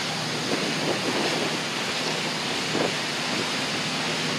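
Steady rush of wind and water on the deck of a moving cruise boat, with wind buffeting the microphone.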